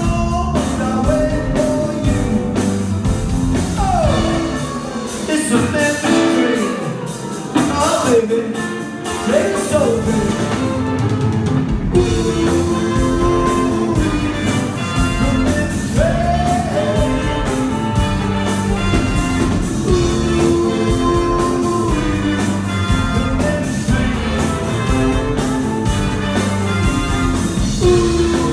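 Live rock-and-roll/R&B band with drum kit and electric guitars, a male lead singer over the top. A few seconds in, the bottom end drops away for a stretch while the voice slides up and down in pitch, and the full band comes back in about twelve seconds in.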